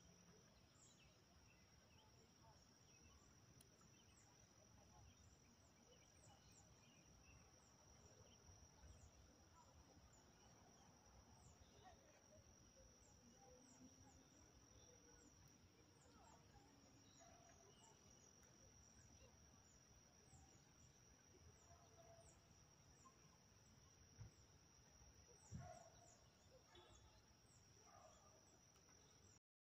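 Near silence at a pond's edge, with a faint, steady high-pitched insect trill and a couple of soft knocks near the end.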